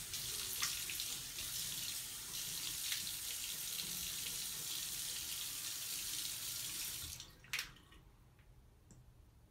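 Bathroom sink tap running steadily while water is splashed onto a face by hand, with a few short splashes. The water stops about seven seconds in, followed by a single sharp knock.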